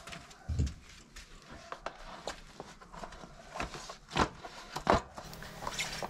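Light clicks and knocks from hands working a bicycle wheel and its tubeless valve, the lock nut being tightened on the rim, with a few louder thumps about half a second, four seconds and five seconds in.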